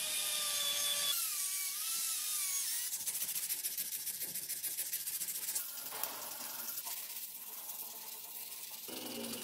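A small rotary tool with a sanding drum grinding a steel wrench, its motor whine wavering in pitch under load for the first few seconds. Then fast, even scrubbing of an abrasive pad on the metal by hand, and toward the end softer rubbing of sandpaper along the handle.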